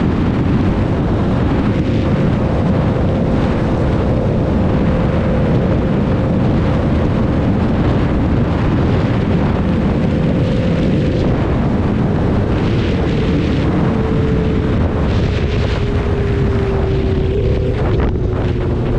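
Motorcycle on the move: heavy wind rumble on the microphone over a steady engine drone whose pitch sinks slowly in the later seconds.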